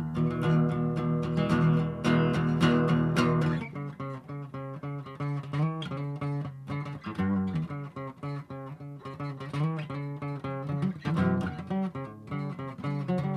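Acoustic guitar strummed in a steady rhythm for about the first three and a half seconds, then picked note by note: the instrumental introduction to a song.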